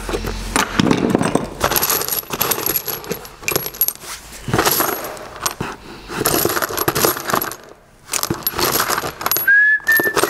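Loose metal engine parts clinking and clattering as a hand rummages through a box of old parts, with a brief pause about two-thirds of the way through and a short high tone near the end.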